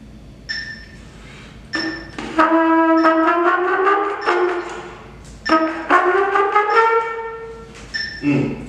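Trumpet played solo: a couple of short notes, then two longer slurred phrases that climb in pitch, stopping shortly before the end.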